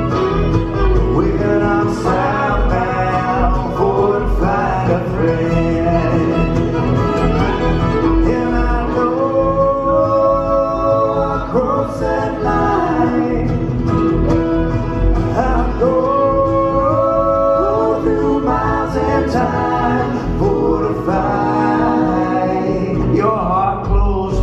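Live bluegrass band playing a tune on fiddle, mandolin, banjo, acoustic guitar and upright bass, with a steady plucked bass line under the picking and bowing.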